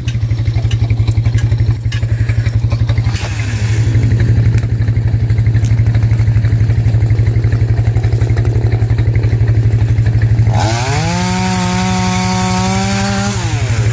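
ATV engine running steadily under load with a fast, even pulse. About ten and a half seconds in, the engine revs up, holds the higher note for about three seconds, then falls back.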